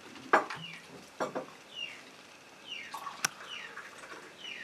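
A small bird chirping repeatedly, short high chirps falling in pitch about once a second. Under it come a few sharp knocks and clinks of a vacuum flask and cups being handled on a table; the loudest knock comes just after the start.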